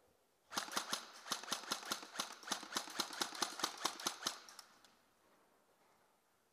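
Airsoft gun firing a rapid string of sharp shots, about six a second, for some four seconds, then stopping.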